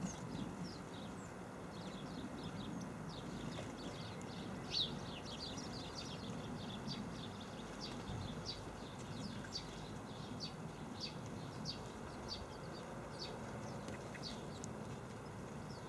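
Sparrows chirping steadily at a bird feeder, short high chirps several times a second with one louder chirp about five seconds in, over a low background rumble.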